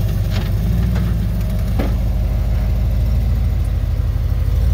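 Jeep Wrangler's engine running steadily at low revs as it crawls up a boulder, with a couple of faint knocks about half a second and two seconds in.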